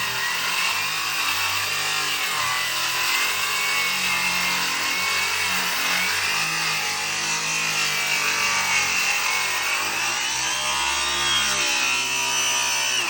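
Power saw cutting through a wooden curved stair stringer, a continuous cutting noise with a motor whine that wavers up and down in pitch as the saw is steered around the curve. The sound cuts off suddenly at the very end.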